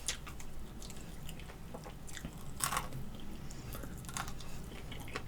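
A person chewing and biting chicken wings, with irregular short mouth clicks and light crunches. The loudest crunch comes a little past halfway.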